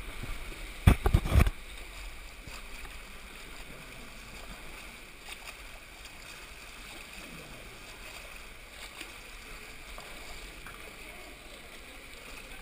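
Water sloshing and splashing from a freestyle swimmer's strokes, picked up by a microphone at the waterline, with a few loud knocks about a second in.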